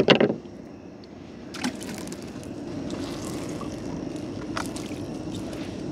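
Water sloshing and trickling around a small river boat, with a few light knocks. A brief loud burst comes right at the start.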